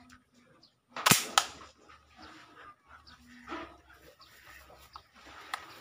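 Ball bearing toy gun firing: a sharp pop about a second in, with a second crack a moment later. Faint farm animal calls can be heard around it.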